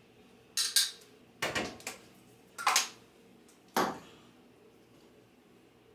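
A glass jar and other small items clinking and knocking against a hard counter: four short clatters about a second apart.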